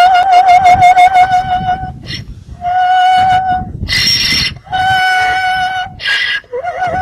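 Donkey braying in long, high, sung notes with a wavering pitch, several in a row. Short harsh bursts break them up, the loudest about four seconds in.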